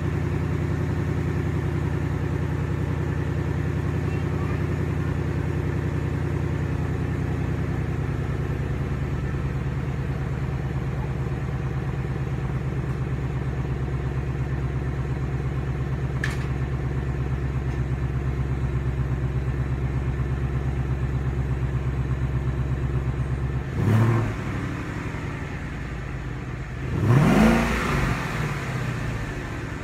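2016 Mustang GT's 5.0 L V8 idling steadily through its exhaust after a cold start. Near the end it is revved twice: a short blip, then a longer rev that rises and falls back to idle.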